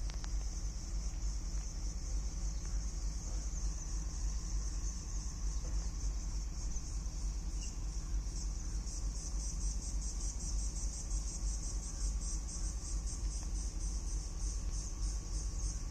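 A chorus of insects buzzing steadily and high-pitched, the buzz breaking into a rapid even pulsing in the second half, over a steady low rumble.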